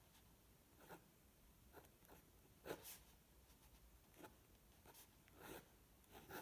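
Faint scratching of a fine pen drawing lines on paper: a handful of short strokes, the clearest nearly three seconds in.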